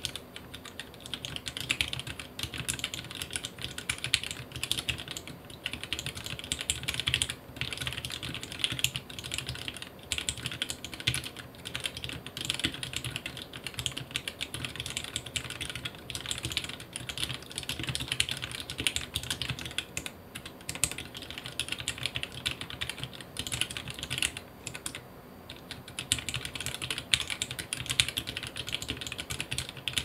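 Continuous typing on an XD75RE ortholinear mechanical keyboard fitted with lubed Gateron Yellow linear switches on 62 g springs and GMK keycaps: a dense, steady stream of keystroke clacks, with brief lulls about seven seconds in and near twenty-five seconds.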